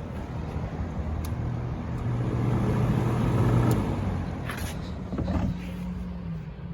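Penncrest 100 box fan running, a steady rush of air with a low hum that swells and fades about halfway through, and a couple of short clicks near the end. The fan shakes and its back grill vibrates, which the owner puts down to an out-of-balance blade.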